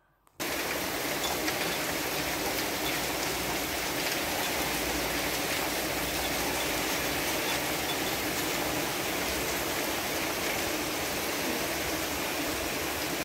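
Heavy rain pouring down in a steady, even hiss that cuts in abruptly about half a second in.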